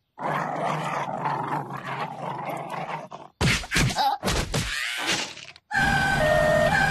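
Cartoon sound effects: a rough, noisy sound for about three seconds, then a few sharp hits and swishes. Near the end a two-tone hee-haw siren starts on an emergency van.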